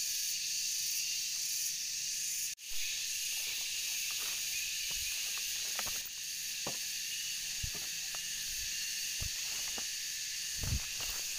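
Steady high-pitched insect chorus of the tropical forest, cut by a brief dropout about two and a half seconds in. Soft footsteps on leaf litter come and go through the second half.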